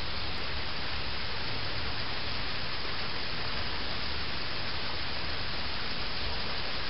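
Heavy downpour of large raindrops: a dense, steady hiss, with a low rumble underneath.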